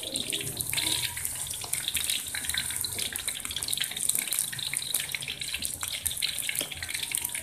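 Flour-battered chicken pieces deep-frying in hot oil in a wok: a steady sizzle dense with small crackles and pops.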